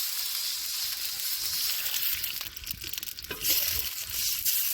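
Food sizzling and frying in hot oil in a pan, with a louder knock about three and a half seconds in.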